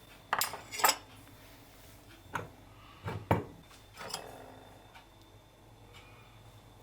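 Dishes and cutlery clattering: about six short knocks and clinks in loose pairs over the first four seconds or so, the last one ringing briefly.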